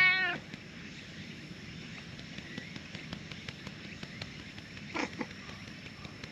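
A ginger tabby cat's loud meow, ending about half a second in, then a low steady outdoor background with a brief, much quieter sound about five seconds in.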